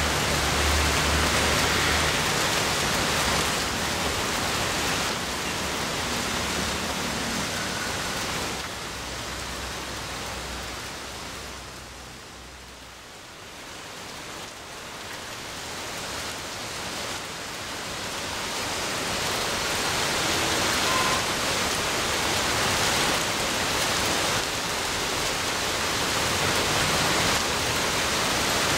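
Heavy rain pouring down: a dense, steady hiss. It thins for a few seconds near the middle, then builds back up to full strength.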